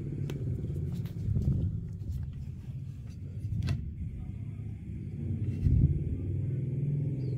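A few sharp clicks and knocks from handling a cordless mini circular saw as its bevel angle is set and the saw is lifted, over a steady low rumble. The saw's motor is not running.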